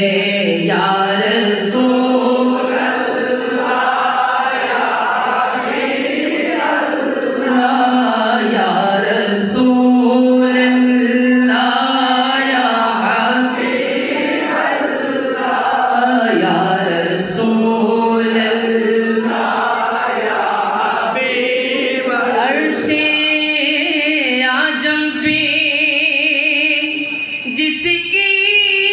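A man singing a Bengali naat, a devotional song in praise of the Prophet, into a microphone. His voice runs continuously from line to line and holds some notes long.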